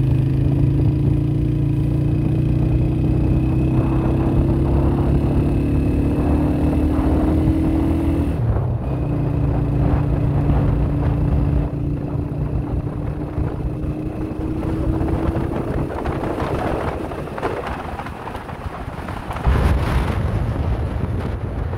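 Motorcycle engine running at road speed, with wind rushing over the microphone. Its note climbs slowly, dips briefly about eight seconds in, then climbs again. After about fifteen seconds the engine fades, leaving mostly wind rush and a low rumble.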